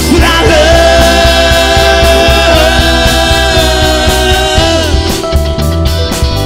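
Live rock band playing: bass, drums and guitar under a long held lead note that lasts about four seconds and ends about three-quarters of the way through.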